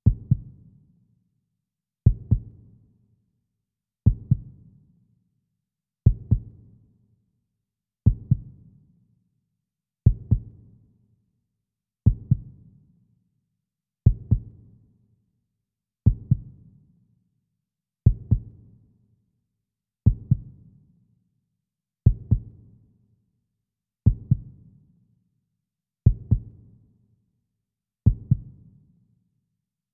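A slow heartbeat sound in a musical score: a low double thump (lub-dub) repeating evenly every two seconds, fifteen times, each stroke dying away before the next.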